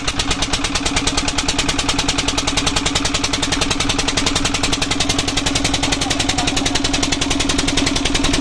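Fishing boat's inboard engine running steadily close by, with fast, even beats, about a dozen a second, over a steady hum.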